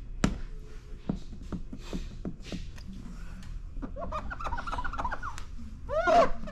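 Fingertips pressing and rubbing wet paint protection film along the edge of a car bumper. A run of soft clicks is followed by squeaks that waver up and down in pitch, the loudest about six seconds in.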